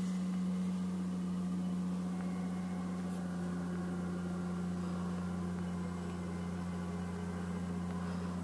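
Diesel engine of a Caterpillar wheel loader running at a steady speed as it pushes snow, heard as a constant low drone through a window.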